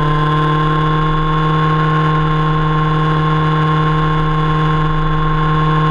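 Motorcycle engine running at a steady speed while cruising, one even hum whose pitch holds constant, heard up close from the footrest.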